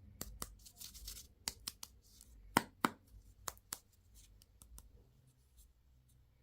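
Hands opening plastic candy and toy packaging: short crinkling and tearing of wrapper plastic, and a string of sharp plastic clicks, the two loudest close together about halfway through.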